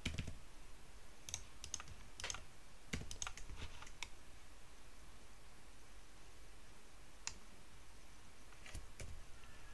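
Faint, scattered clicks of a computer keyboard and mouse as shortcuts are pressed: several in the first four seconds, a lull, then a few more near the end.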